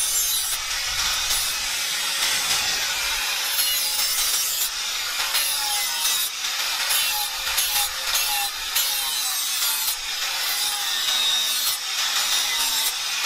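Handheld angle grinder with an abrasive disc grinding the edge of a steel axe head cut from a plough disc. It gives a steady motor whine under a continuous gritty hiss that swells and eases as the disc is pressed on and lifted off the metal.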